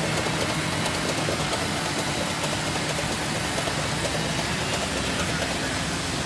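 Sawmill band resaw and surrounding mill machinery running steadily: a constant mechanical drone with a low hum and no clear breaks.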